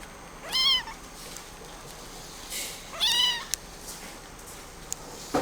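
Scottish Fold kitten meowing twice, two short high-pitched mews about two and a half seconds apart, each rising then falling in pitch, with a few small clicks between them.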